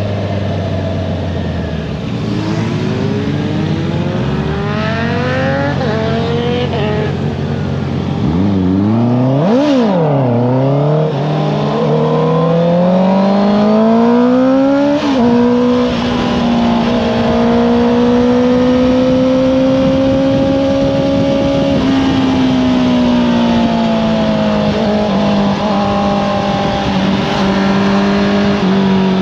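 Honda CBR650R inline-four engine through an Akrapovič exhaust, ridden hard: the revs sink at first, then jump up and down quickly a few times about nine seconds in, climb steadily, drop at a gear change near fifteen seconds, and hold a long, steady pull that eases off after about twenty-two seconds.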